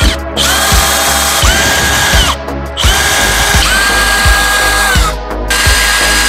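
Cordless drill running in three bursts of about two seconds each, its motor whine rising as it spins up and falling away as it stops. Background music with a steady beat plays underneath.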